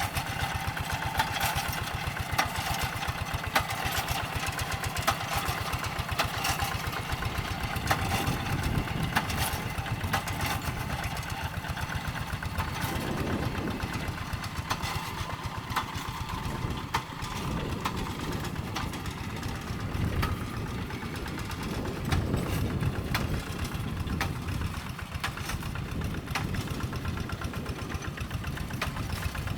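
Two-wheel hand tractor's single-cylinder diesel engine running steadily while plowing a rice paddy, a rapid even knock of firing strokes, swelling a little in a couple of places.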